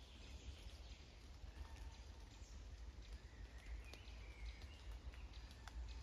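Faint rainy forest ambience: scattered raindrops tapping now and then, soft bird calls, and a low steady rumble underneath.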